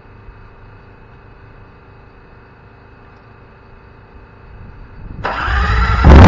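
Big Dog chopper's V-twin engine being started: a starter cranks just after five seconds in, and the engine fires and runs very loudly through its loud pipes near the end.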